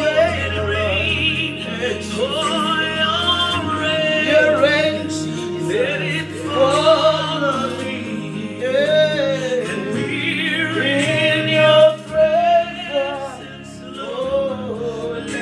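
Gospel worship music: a singer holding long, wavering notes over steady sustained backing chords.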